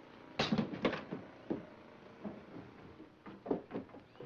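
Footsteps and knocks on wooden boards as someone walks quickly across a cabin porch and floor. The loudest cluster of knocks comes about half a second in, followed by scattered, unevenly spaced steps.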